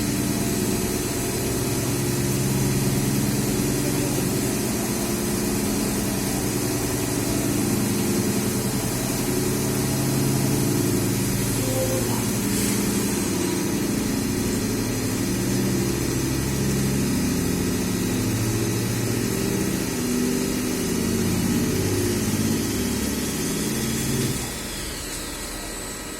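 Machine motors running with a steady hum whose low tones step from pitch to pitch every second or so, as on a CNC machine moving through a program, stopping suddenly about 24 seconds in.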